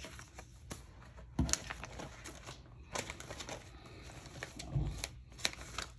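Handmade paper cards being handled and set down on a wooden tabletop: scattered light taps and paper rustling, with a soft thump about one and a half seconds in and another near the end.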